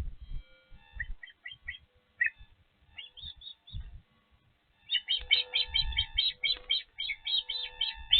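Osprey calling in short, high whistled chirps: a few scattered notes, then a fast excited run of about four to five chirps a second in the last three seconds. Low thumps from the nest or wind on the microphone sit underneath.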